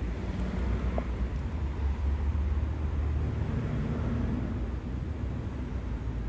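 Steady low rumble of outdoor city background noise, with no distinct event standing out.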